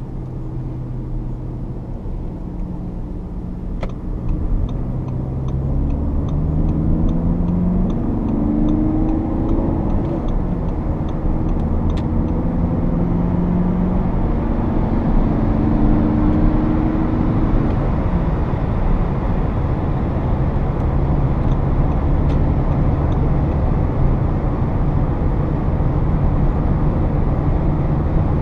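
Inside the cabin of a Volkswagen Passat B8's 2.0 TDI four-cylinder turbodiesel, accelerating hard onto the motorway: the engine note climbs in pitch in several steps, then settles into steady high-speed cruising under tyre and wind noise. A fast, light, regular ticking is heard for several seconds early in the acceleration.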